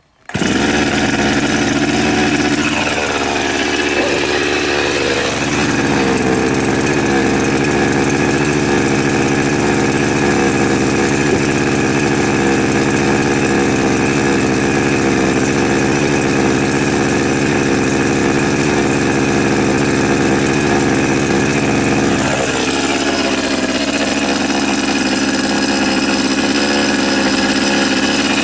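Chinese 52cc two-stroke chainsaw running at idle with a steady buzz; its pitch wavers briefly a few seconds in and again near the end.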